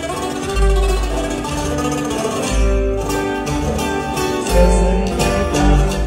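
Acoustic guitar playing a plucked melody in regional Mexican style, with deep bass notes coming in about every two seconds underneath.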